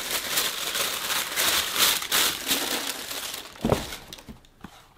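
Packing material crinkling and rustling as a pair of shoes is unwrapped from its shoebox. A short knock comes about three and a half seconds in, and the rustling dies away near the end.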